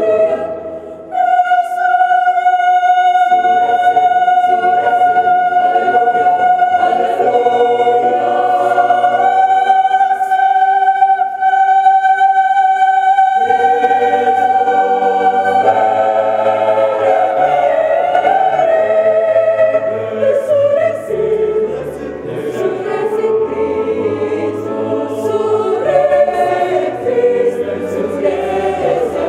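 Mixed choir of men and women singing in parts. A high voice part holds one long note for the first half while the lower voices move beneath it; then all the parts move together.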